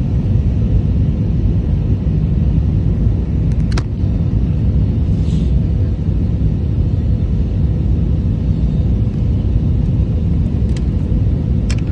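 Airbus A320 cabin noise in flight: a steady low rumble of engines and airflow, with a faint steady hum and a couple of brief faint clicks.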